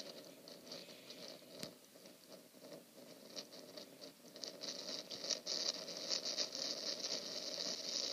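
Light rain pattering: irregular drops that get denser and louder from about halfway through.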